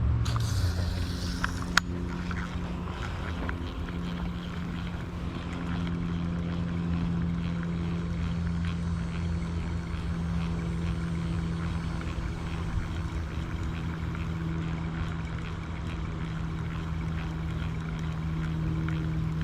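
A steady low engine-like drone with a constant pitch, over a low rumble. A brief hiss and a sharp click come in the first two seconds.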